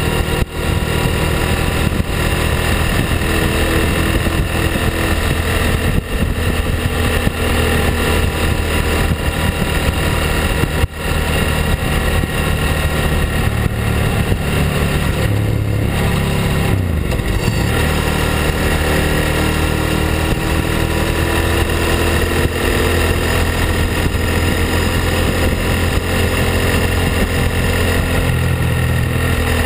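Ducati Hypermotard's L-twin engine and exhaust heard close up from the rear fender while riding. The engine note dips briefly a little past halfway through, then climbs steadily as the bike accelerates.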